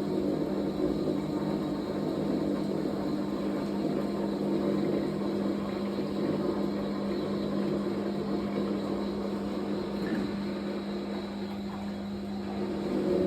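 Fisher & Paykel washing machine running a blankets wash cycle, giving a steady motor hum that eases slightly about ten seconds in and picks up again near the end.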